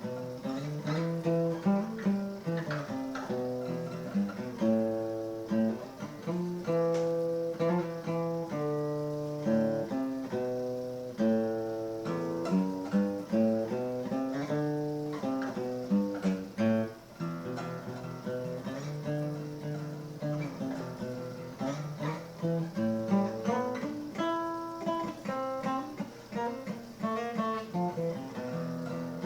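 Acoustic guitar music: a continuous run of plucked notes and chords.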